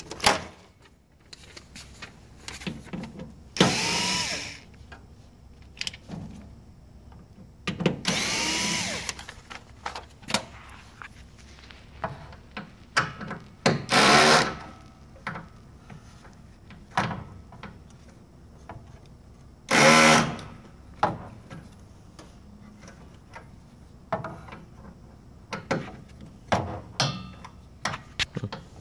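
Cordless drill with a screwdriver bit turning the screws of a printer's plastic side cover, running in four short bursts of about a second each, the motor pitch rising and falling in each run. Small clicks and knocks of handling the tool and panel come between the runs.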